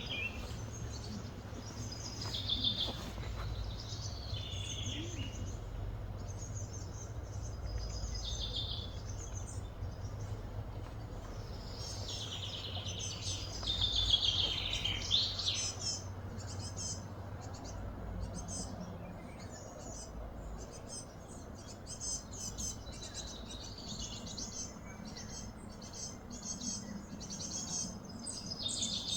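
Birds chirping and calling, the loudest a cluster of falling calls about twelve to fifteen seconds in, over a steady low hum.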